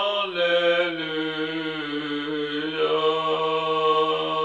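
A man singing unaccompanied, holding one long drawn-out vowel. The note steps down in pitch just after the start and then stays steady to the end.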